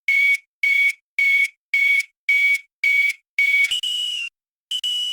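Electronic emergency code alarm beeping in short, even pulses, about two a second, on one steady tone. About three-quarters of the way through it switches to a slightly higher tone sounding in longer blasts.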